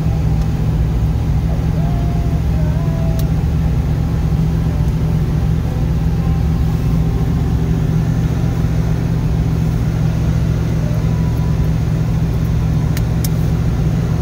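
1979 Chevrolet Corvette's small-block V8 idling steadily, heard from inside the cabin, left running to let the idle settle after starting.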